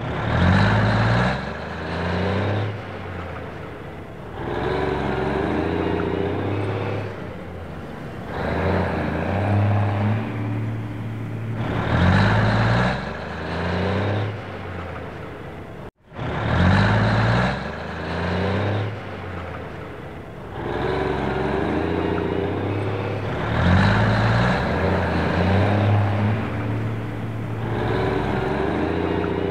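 Truck engine sound effect running and rising and falling in repeated swells every couple of seconds. It is a loop that starts over about halfway through.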